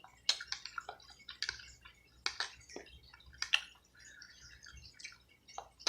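Close-up wet chewing and lip smacking of a person eating barbecue neck bones: an irregular string of short smacks and clicks.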